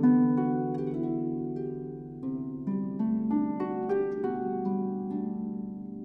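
Concert harp played solo: a melody of plucked notes ringing into one another over low notes that change about every two seconds, opening on a strong plucked chord.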